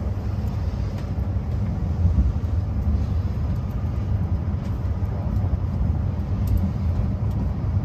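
Cabin noise inside an E6 series shinkansen car under way: a steady low rumble of the running train.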